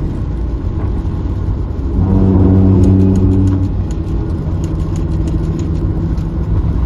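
Engine and road noise heard inside a moving car, with a steady low rumble. About two seconds in, the engine note swells louder for a second or two, then settles back to a steady hum.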